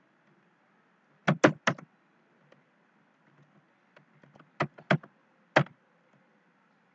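Typing on a computer keyboard: sharp key clacks in short, uneven bursts. Three loud clacks come about a second and a half in, then faint taps, then three more loud clacks around five seconds in.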